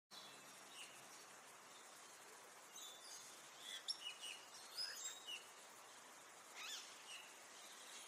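Bali myna giving short, high chirps and whistles, a quick run of them in the middle and one more call near the end, over a faint steady hiss.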